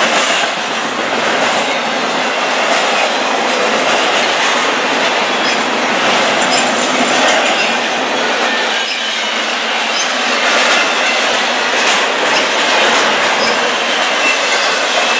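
Double-stack intermodal freight train's loaded well cars rolling past: a steady rolling noise with wheels clicking over the rail joints and a faint, thin high wheel squeal.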